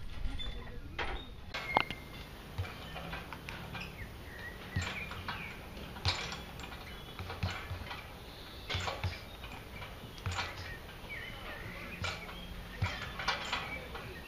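Scattered knocks and clanks, about one every second or so, from people working out on metal and tyre equipment in an open-air gym.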